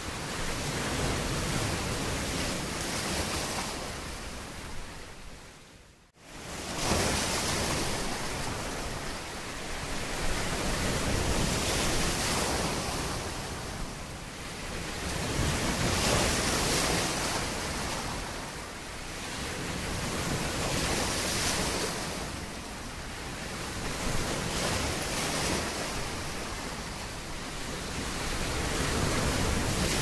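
Sea waves washing in and out, a steady rush that swells and ebbs every four to five seconds. About six seconds in it fades almost to silence and comes straight back.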